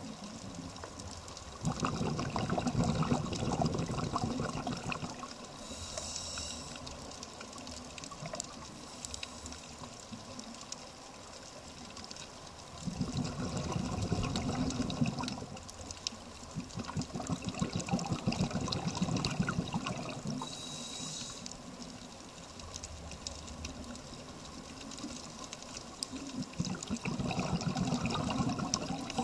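Scuba regulator breathing underwater: several long bursts of exhaled bubbles, each a few seconds, with short hissing inhalations between them, over a faint steady crackling.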